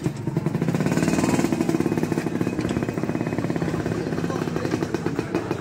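Vintage Vespa scooter's two-stroke engine running steadily close by, its exhaust giving a rapid, even popping beat.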